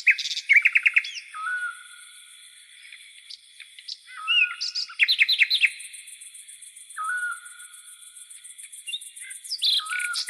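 Songbirds singing a repeated phrase: a short low hooked note followed by a quick run of clear, bright notes, heard about three times. Behind it runs a steady, high-pitched pulsing trill of insects.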